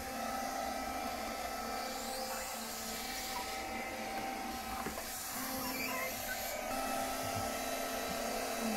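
Handheld cordless window vacuum running, a steady motor whine as it is drawn across a porthole's wet glass.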